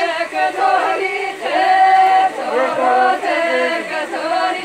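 A group of women singing a folk wedding song together, unaccompanied, with long held notes.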